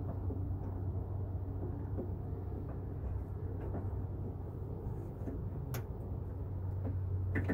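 Light metallic clicks and knocks of a hand working the door-lock linkage rod inside a pickup truck's door shell, with one sharper click a little under six seconds in, over a steady low hum.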